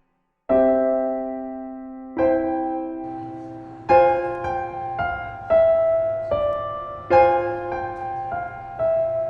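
Slow, gentle piano music: chords struck about every second and a half, each left to ring and fade, with a few single melody notes in between.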